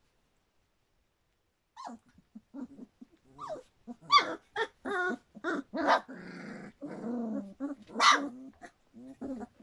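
Three-week-old Standard Poodle puppies calling as they play: a string of short whines and yips beginning about two seconds in, with a longer rough growl in the middle and the loudest yelps about four and eight seconds in.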